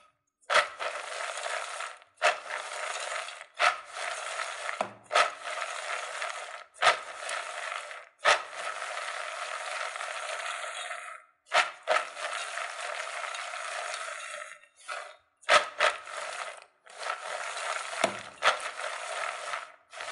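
Raw peanuts rattling and sliding around inside a metal pot as it is shaken and swirled. This comes in repeated bursts a second or two long with brief breaks between. The peanuts are being tossed to coat them evenly with an egg-yolk and sugar mixture.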